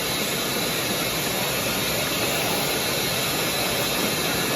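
Air-powered coolant barrier tool hissing steadily as shop air rushes through it, holding the cooling system under a light vacuum and drawing excess coolant off into a bucket.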